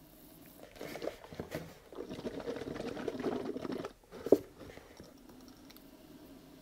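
Acidic toilet bowl cleaner gurgling and splashing as it pours from an upturned plastic bottle into a rusty steel fuel tank. It comes in a short burst, then a steadier pour that stops about four seconds in, followed by one sharp tap.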